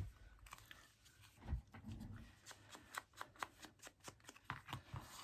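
Faint, quick taps and light scuffs of an ink blending tool being dabbed over a small paper word to ink it, a few taps a second, coming faster in the second half.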